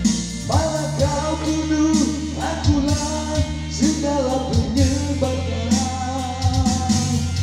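A man singing karaoke into a handheld microphone over a backing track played through loudspeakers, holding long sung notes.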